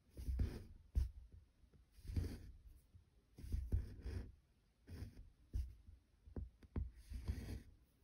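Needle and floss being pushed and drawn through evenweave cross-stitch fabric: a short scratchy pull and rustle about once a second.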